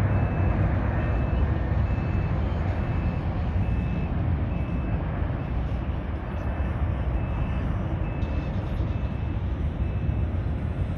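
Boeing 757-200 freighter's twin Pratt & Whitney PW2040 turbofans rumbling as the jet climbs away after takeoff, the deep roar slowly fading with distance. A vehicle's reversing beeper sounds faintly in the background, about once every 0.7 seconds.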